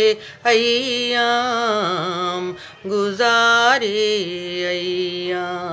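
A woman singing an Urdu nazm unaccompanied, in long held notes with wavering ornaments. She pauses briefly for breath about two and a half seconds in.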